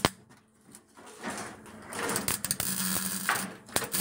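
CO2-shielded wire-feed (MIG/MAG) welder tack-welding exhaust pipe: a sharp crack of the arc striking at the start, then a run of dense crackling from about halfway through until just before the end.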